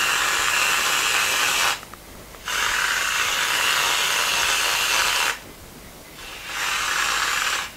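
Aerosol can of whipped spray cream hissing as it is dispensed, in three long bursts with short pauses between them: one ending under two seconds in, one of nearly three seconds in the middle, and a shorter one near the end.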